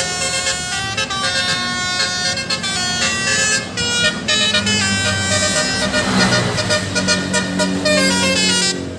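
Bus musical air horn (telolet basuri) playing a tune of stepped notes, with some notes gliding. From about halfway a bus engine runs low underneath.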